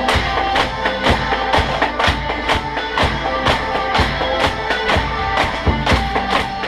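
Background music with a steady percussive beat and sustained instrumental notes.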